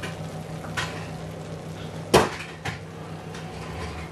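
Oven door shutting with a single loud bang about halfway through, among a few lighter kitchen knocks, over a steady low hum.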